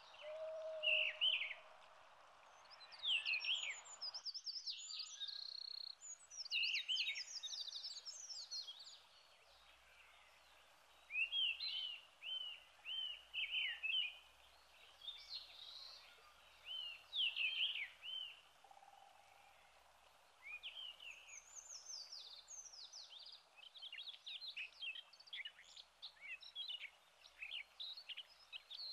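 Forest birdsong: small songbirds singing short phrases of quick, downward-sweeping chirps, one phrase every second or two. A steady rush of background noise runs under the first few seconds and cuts off suddenly about four seconds in.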